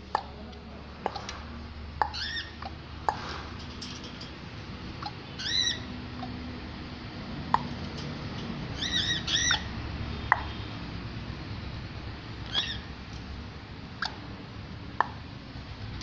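Caged Amazon parrot giving short, arched chirping calls every few seconds, two of them in a quick pair near the middle. Scattered sharp clicks sound between the calls.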